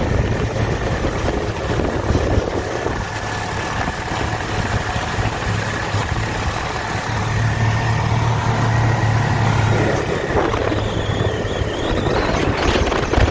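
Snowmobile engine running steadily under way, a little louder for a few seconds past the middle.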